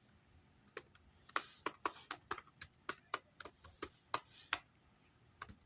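Keys tapped on a computer keyboard: about a dozen sharp, irregular clicks, with a short pause near the end.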